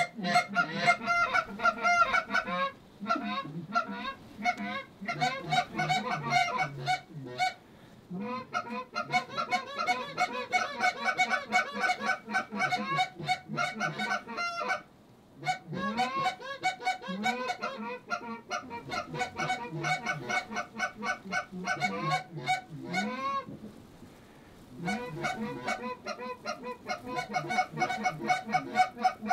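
A flock of geese honking, many rapid calls overlapping in a near-continuous chorus with a few short pauses.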